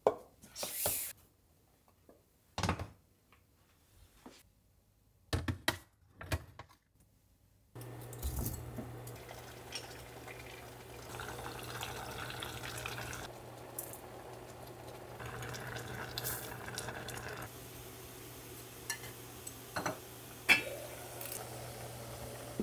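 Kitchen sounds of cooking prep: a few separate knocks and clinks of food containers, lids and pots, then, about eight seconds in, a steady low hum with a light hiss sets in, under soft pouring of soy sauce into a pot of lotus root. A sharp knock near the end as a wicker basket is set down on an enamel saucepan.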